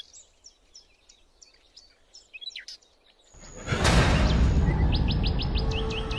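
Songbirds chirping, a scatter of quick high chirps in a quiet stretch. About three and a half seconds in, loud low-pitched music swells in and carries on, with a run of rapid chirps over it.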